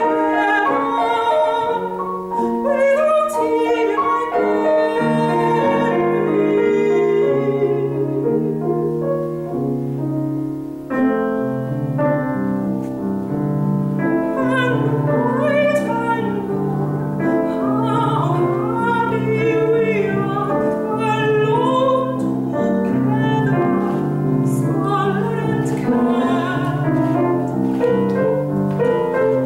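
Soprano singing a classical art song with grand piano accompaniment. Her voice wavers with vibrato over the piano's chords, and the music eases briefly about ten seconds in before the piano comes back in fuller.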